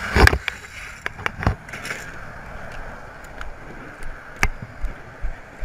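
A motorcycle crash: a loud knock just after the start, then the sport bike sliding on its side along the asphalt, scraping, with scattered sharp knocks over a steady rush of wind and road noise.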